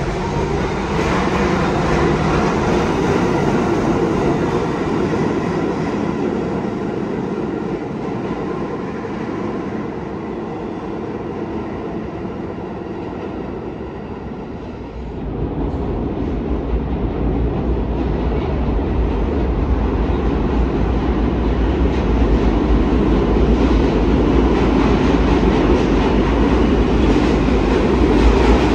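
R68A subway train pulling out of the station, its motors and steel wheels running on the rails and fading a little. About halfway through, the sound changes to a train approaching through the tunnel, a deep rumble growing steadily louder as it nears.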